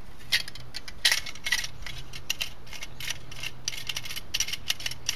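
Irregular light metallic clicks and clinks as the wing nut on a Sven folding saw's metal handle is spun loose and the saw's metal parts are handled, the sharpest clicks in the first two seconds.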